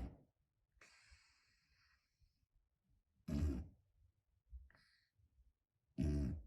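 Cat snoring loudly: two short snores about three seconds apart, with faint hissing breaths between. The owner puts it down to a bad nose.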